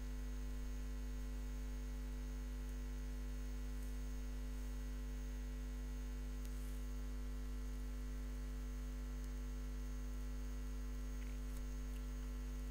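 Steady electrical mains hum with faint hiss, unchanging throughout.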